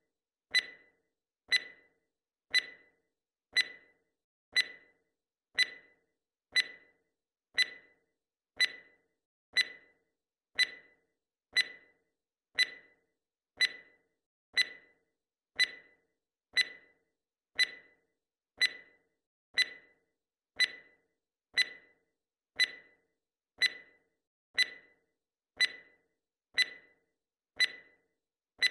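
Timer's clock-tick sound effect: one short, sharp tick every second, steady and even.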